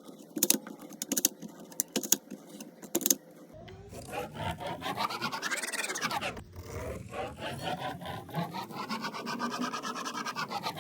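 A pen scratching on paper as it traces a spirograph pattern. A few separate clicks come first. Then, from about three and a half seconds in, a continuous rasping scrape sweeps up and down in pitch twice as the stroke speeds up and slows down.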